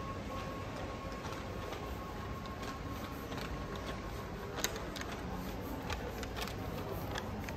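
Steady background hubbub of a shopping mall, with scattered light clicks and a faint steady tone in the first half.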